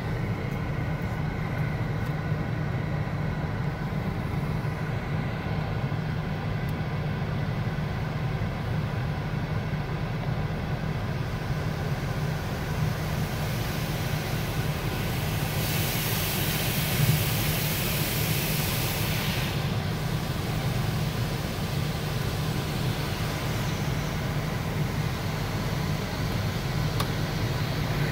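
Automatic car wash heard from inside the car cabin: a steady low hum throughout, with water spraying against the windshield and body. A louder hiss of spray comes from about 15 to 19 seconds in.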